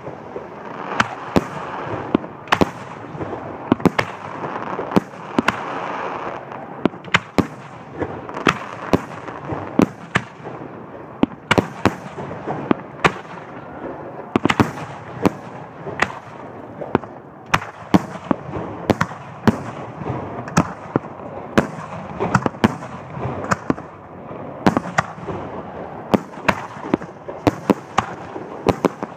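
Aerial fireworks display: shells bursting in an irregular, unbroken run of sharp bangs, often more than one a second, over a continuous noisy background between the reports.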